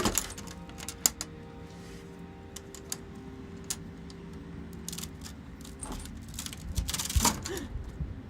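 Metal chains and a padlock being handled: scattered sharp clinks and jangles, with a busier rattle near the end, over a faint steady hum.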